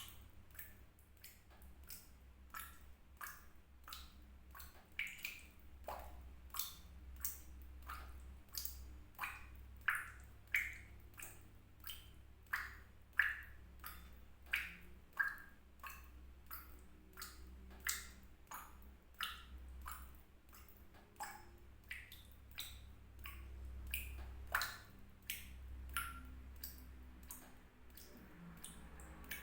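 Water drops falling one after another into water, each a short plink with a brief ring, irregularly about two a second, over a faint low steady hum.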